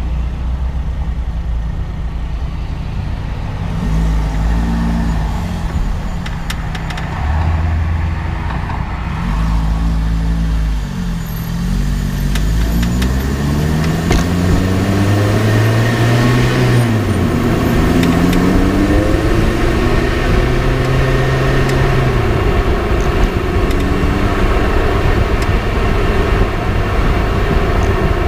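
Lotus Elise on the move, heard from its front left suspension: heavy road and tyre rumble under the engine note, which rises and falls several times as the car accelerates and changes gear. A few sharp clicks come through the rumble, the sort of clicking being traced in that front suspension.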